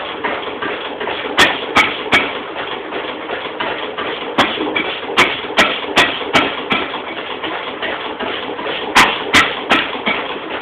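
Restored Lister N-type stationary engine running with a steady mechanical rattle, broken by sharp cracks at uneven intervals, often in quick groups.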